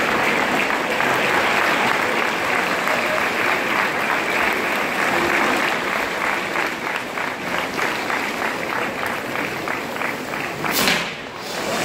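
Crowd in the stands applauding, the clapping falling into a rhythmic beat of about three claps a second partway through. Near the end there is one short, sudden loud burst of noise.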